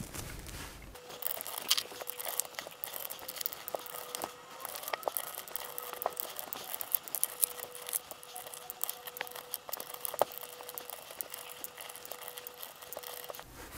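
Fast-forwarded screwdriver work on a metal keyboard back plate: a dense patter of small clicks, taps and scrapes as many little screws are undone. A faint steady tone runs underneath.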